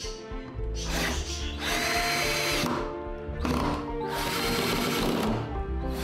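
Cordless drill driving screws into a wooden board, its motor whining in two short runs, over background music.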